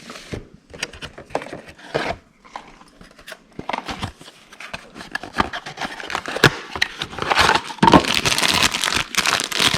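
Small cardboard blind boxes and their packaging handled with light taps and clicks, then about seven seconds in a louder stretch of crinkling and tearing as a box and its plastic wrapping are opened.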